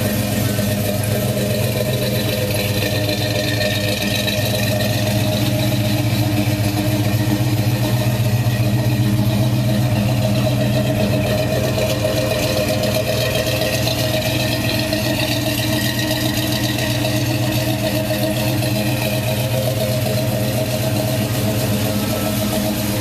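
1972 Chevrolet pickup's engine idling steadily.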